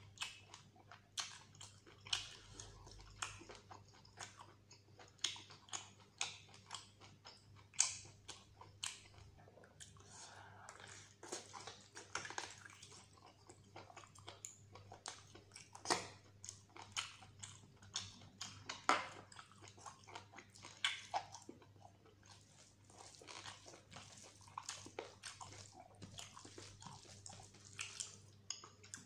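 A man chewing and smacking his lips while eating mutton curry and rice by hand: irregular wet clicks and smacks, several a second.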